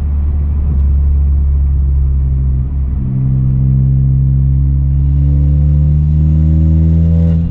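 Audi A4 B9's turbocharged four-cylinder engine through an Armytrix valvetronic catback exhaust with the valves open, heard from inside the cabin: a steady low drone, then from about three seconds in the engine note climbs slowly and steadily as the revs rise.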